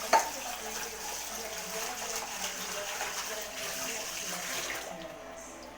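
Water running steadily, like a tap into a sink, easing off near the end, with a sharp knock just after the start.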